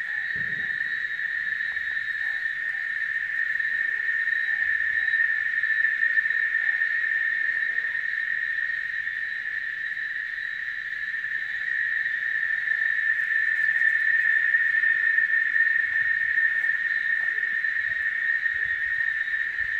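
Cicadas singing in the treetops: one continuous high-pitched drone that holds steady and swells a little in the second half.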